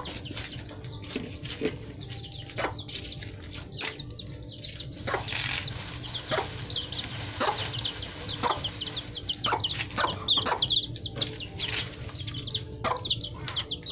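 Young chickens peeping and clucking in a quick run of short high chirps, heaviest in the middle of the stretch, over scattered clicks and knocks from puppies eating rice out of a large basin.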